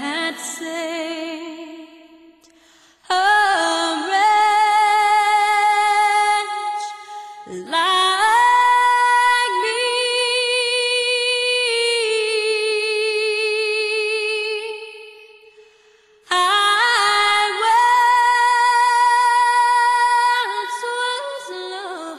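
Solo female voice singing slow, long-held notes with vibrato, in three phrases with short breaks between them and no other instrument heard.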